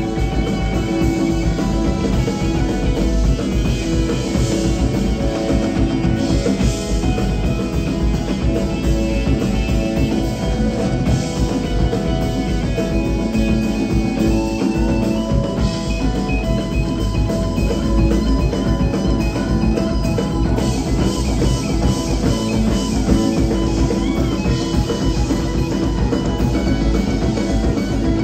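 Live rock band playing an instrumental passage: drum kit and congas under electric guitar, bass and keyboard, with no singing.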